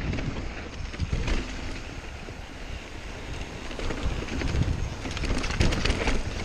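Santa Cruz Nomad mountain bike rolling over a dirt and rocky singletrack, its tyres running on the trail with wind rushing over the camera microphone. Short knocks and rattles from the bike over rocks come through, most of them around five to six seconds in.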